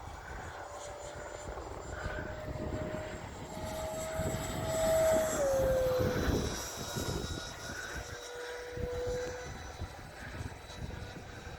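Electric ducted fan of a Freewing Avanti S 80mm RC jet whining in flight. Its tone rises and grows louder as it comes near, then drops in pitch as it passes about five seconds in. Wind buffets the microphone throughout.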